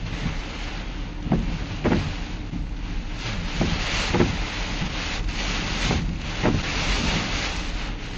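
Tropical-storm wind gusting around a truck, heard from inside the cab: a steady rushing hiss with irregular low thumps as the gusts buffet the vehicle.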